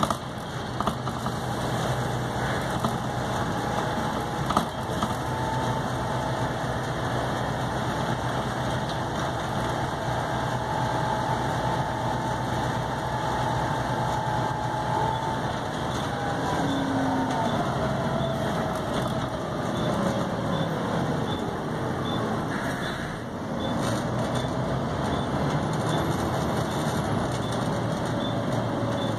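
Volvo B7TL bus's 7.3-litre Euro III diesel engine running on the road. A whining tone slides down in pitch around the middle. The engine note dips briefly about three-quarters of the way through, then picks up steady again.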